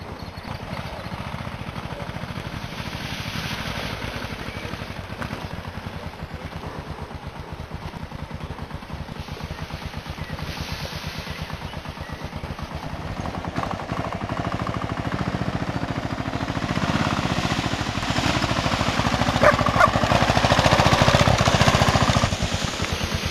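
Kawasaki KLR650's single-cylinder four-stroke engine running with a rapid, even train of exhaust pulses. It grows louder from about halfway and is loudest near the end, then drops back.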